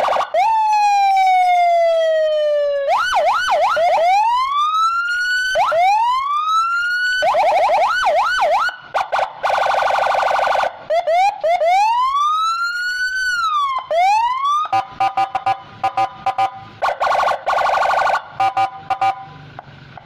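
Electronic siren cycling through patterns: a long falling tone, quick yelps, rising wails and a rise-and-fall wail. These are broken by pulsing stretches of a steady multi-note horn chord.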